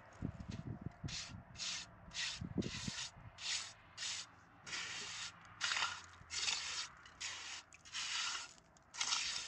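Repeated rubbing or scraping strokes, about one and a half a second and uneven in length, starting about a second in, with a few dull low thuds among the early strokes.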